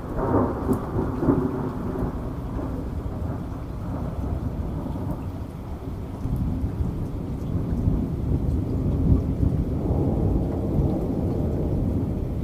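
Thunder rolling and rumbling over steady rain. It swells just after the start and builds again in the second half.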